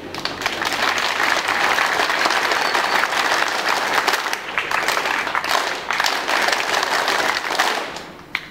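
A large group of students clapping together in dense, sustained applause, which stops fairly suddenly near the end, followed by one last clap.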